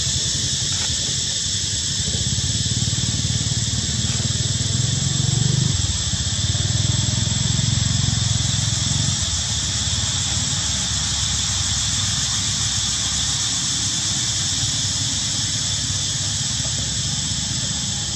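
Steady outdoor ambience: a continuous high-pitched hiss with a low rumble underneath that eases off about six seconds in.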